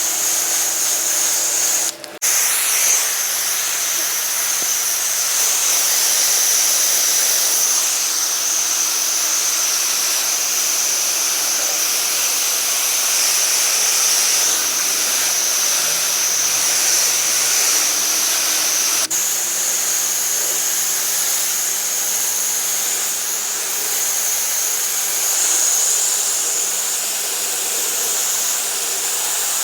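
Pressure-washing spray: a steady, loud hiss of the water jet with a machine's hum underneath. It breaks off briefly about two seconds in, then runs on.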